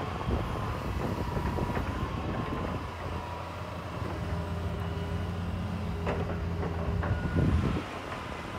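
Tracked hydraulic excavator working: its diesel engine runs steadily with a high whine over it, pulling harder from about halfway through, with a few knocks as the bucket pushes and drops clods of sod and soil. The engine note swells near the end, then eases off.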